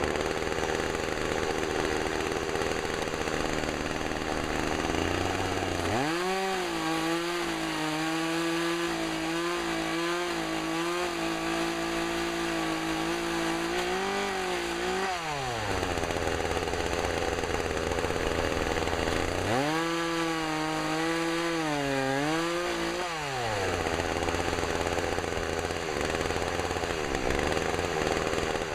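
Gas chainsaw idling, then run up to full throttle twice, first for about nine seconds and then about four, its pitch dipping under load as it cuts through limbs. Between and after the cuts it drops back to idle.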